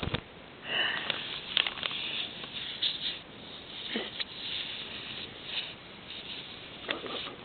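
Man snoring in his sleep: a run of noisy, breathy snores about a second or two apart.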